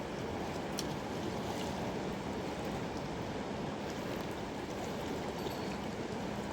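Mountain river flowing steadily, a constant rushing of water.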